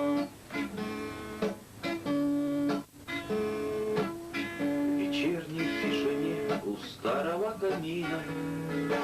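Acoustic guitar playing the instrumental introduction to a bard song, plucked notes and chords ringing one into the next.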